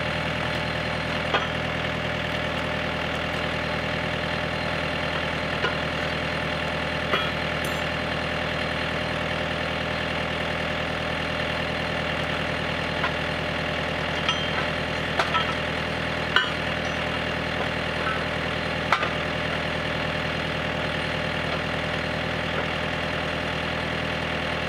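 Tractor engine idling steadily, running the hydraulics of a three-point-hitch log splitter, with several short, sharp metal clinks as steel pieces are set in place under the splitter's wedge.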